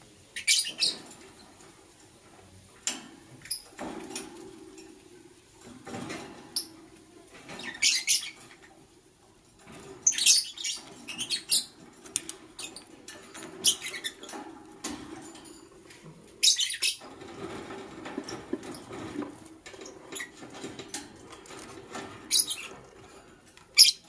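Rosy-faced lovebirds giving short, shrill chirps in scattered bursts, a dozen or so, with the sharpest one near the end.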